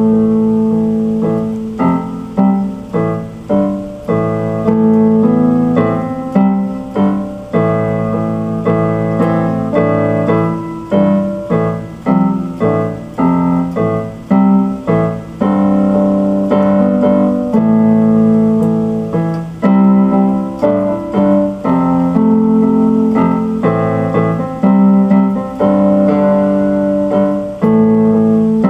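Instrumental piano music played on an electric keyboard: chords and melody notes struck one after another, each fading after it is played.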